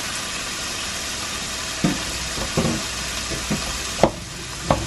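Pork, garlic and freshly added diced onion sizzling steadily in oil in a frying pan. A spatula stirring the food knocks against the pan about five times, loudest about four seconds in.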